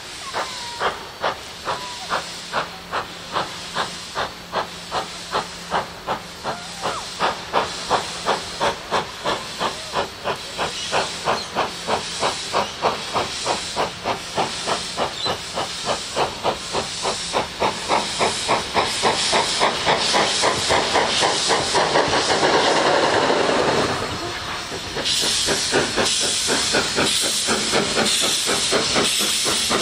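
AC16 class 221A steam locomotive, a 2-8-2, working hard with a train: a steady rhythm of exhaust chuffs that quickens as it approaches, over steam hissing from the cylinder drain cocks. The hiss swells and brightens in the last few seconds.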